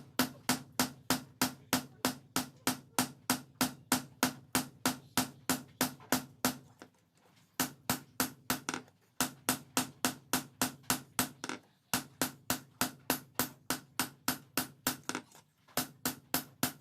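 Hand hammer striking steel on an anvil, forging car leaf-spring steel, about three ringing blows a second. The blows stop briefly about seven seconds in and pause again a few times later.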